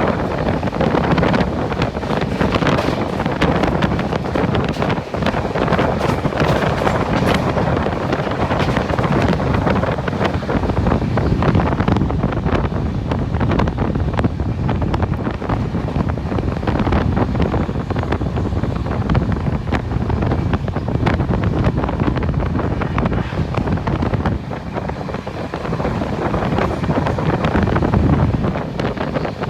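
Wind buffeting the microphone over the steady rushing noise of a moving train.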